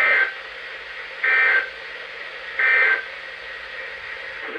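Emergency Alert System end-of-message data signal: three short bursts of rapid two-tone digital warbling about a second apart, marking the end of the alert. A steady radio hiss runs underneath and cuts off at the end.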